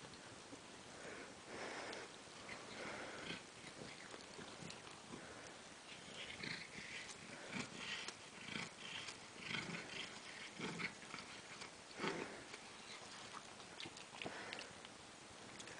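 A cat chewing and tearing at cat grass close up: irregular crunching and clicking, busiest in the second half.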